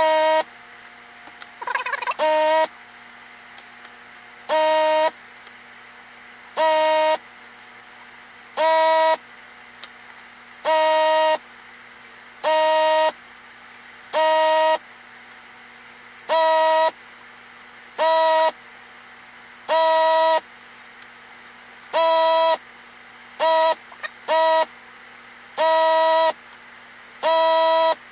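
A buzzy electronic beep, about half a second long, repeating roughly every two seconds, with two quick short beeps close together a little before the end.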